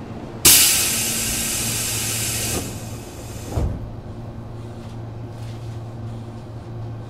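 Tobu 8000 series train's compressed-air equipment releasing a loud hiss about half a second in that lasts about two seconds. A low thump follows about a second later, over the car's steady low hum.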